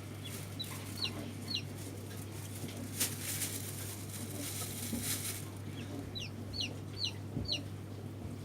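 Newly hatched chicks peeping: short high calls that slide down in pitch, three about a second in and a quicker run of five near the end, over a steady low hum.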